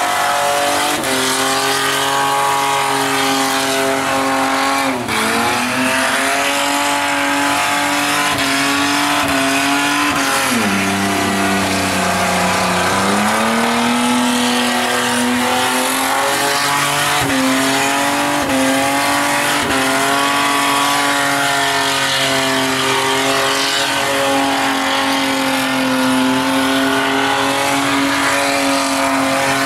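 Holden VR Commodore's 3.8-litre V6 held at high revs in a burnout, its spinning rear tyres screeching and smoking. The revs drop briefly about five seconds in and again for a couple of seconds around the middle, then climb back and hold.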